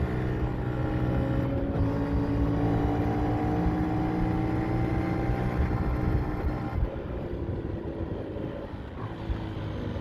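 Yamaha MT-07's parallel-twin engine running under way, its pitch easing slowly down; about seven seconds in the sound drops and turns duller and quieter.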